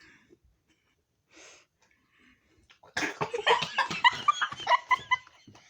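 A person's voice: about three seconds in, a sudden breathy, wheezing outburst with short squeaky bits, like strained laughter, lasting about two seconds.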